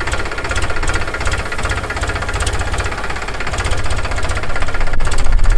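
Powertrac 439 Plus tractor's three-cylinder diesel engine running steadily under load while pulling a groundnut digger through the field, with a rapid low thudding beat. It grows louder near the end.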